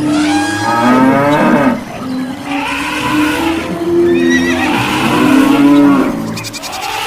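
Animal stampede sound effect: several large animals bellowing and calling over one another, their calls overlapping and sliding in pitch.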